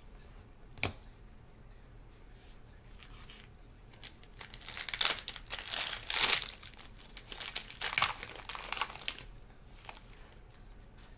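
Foil trading-card pack wrapper and plastic wrap crinkling and tearing as the pack is opened by gloved hands, in bursts from about four to nine seconds in. A single sharp click about a second in.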